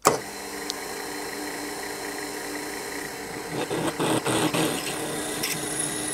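Proxxon FF 230 mini milling machine running with a twist drill cutting into an aluminium bar: a steady motor whine under a cutting noise that grows rougher about three and a half seconds in, with scattered clicks of chips.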